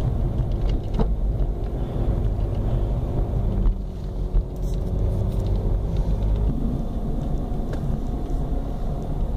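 Car being driven, its engine and tyre noise a steady low rumble heard from inside the cabin, with a couple of light clicks.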